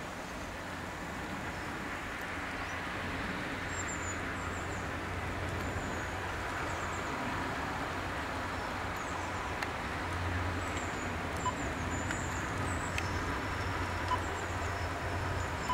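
Class 55 Deltic diesel locomotive's twin Napier Deltic engines running as it draws slowly into a station with its coaches, a low drone that grows louder, strongest in the second half. Short high chirps and a few sharp clicks sound over it.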